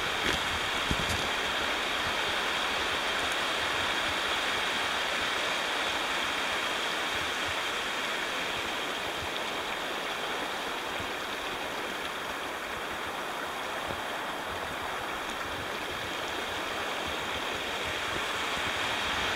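A creek running over shallow riffles and small rocky drops: a steady rushing of water.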